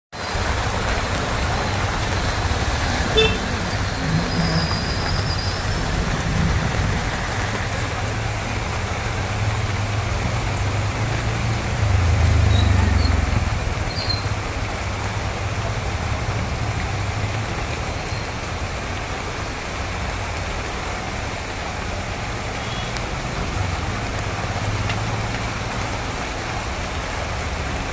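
Heavy rain pouring steadily onto a flooded street, an even hiss, with a low vehicle rumble underneath that swells briefly about twelve seconds in.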